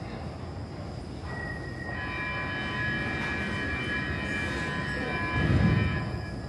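Stockholm metro train in an underground station, squealing: several steady high-pitched tones set in over about two seconds and stop near the end, over a rumble. A deeper rumble swells and peaks just before the squeal stops.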